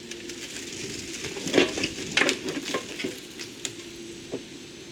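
Irregular knocks, clatter and scraping as a heavy pool sand filter is hauled on a wheeled carrier. The sharpest knocks come in the middle, over a faint steady hum.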